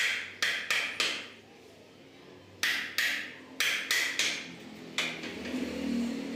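A steel hammer striking a chisel that chops out the waste of a drilled hole in a wooden board. Sharp, ringing blows come in quick groups of two or three, about nine in all.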